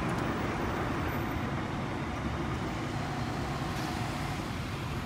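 Fire engine's diesel engine running steadily at idle.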